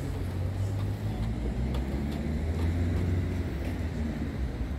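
Steady low rumble of street traffic, with a few faint ticks.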